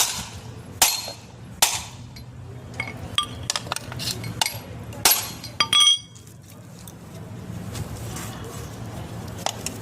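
Sprinkler-pipe connector being struck hard, sharp clinking blows, in a test of its strength. Three loud strikes about a second apart open the sequence, lighter taps follow, and two more hard blows come around the middle, the last with a brief ring. After that only faint taps.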